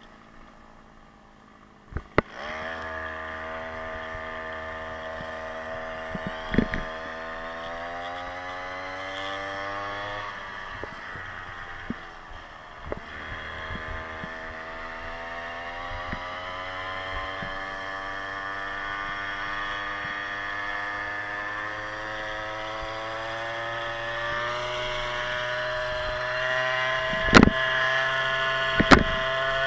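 Small 52cc big-bore two-stroke scooter engine, faint at first, then pulling away about two seconds in with a rising note as it gains speed, easing off briefly around ten seconds in, then climbing steadily again as it accelerates. Two sharp knocks near the end.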